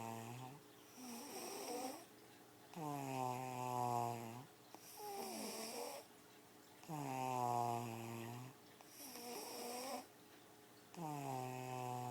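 A sleeper snoring loudly and regularly. Each in-breath is a drawn-out, buzzing snore about a second and a half long, pitched low and sinking slightly, followed by a softer, wavering out-breath, repeating about every four seconds.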